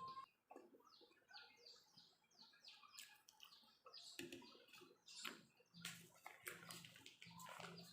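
Close-up eating sounds from chewing french fries: a quick run of wet mouth clicks and smacks with short crunches in between.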